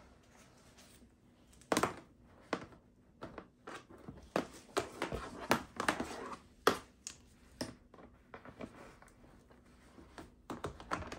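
Irregular plastic clicks, taps and knocks as a mesh bath support with a plastic frame is handled and fitted onto the rim of a foldable plastic baby bathtub, with a couple of sharper knocks standing out.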